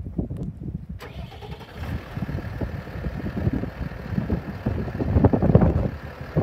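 Case IH Puma 165 tractor's six-cylinder diesel engine running as the tractor rolls forward, getting louder near the end, with low rumble from wind on the microphone.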